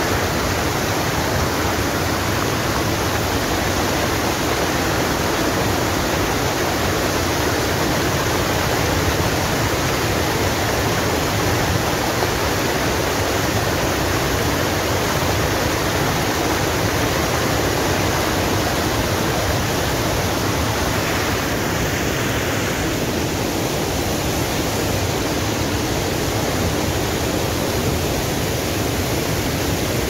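Loud, steady rush of a powerful waterfall, the water coming down with great force.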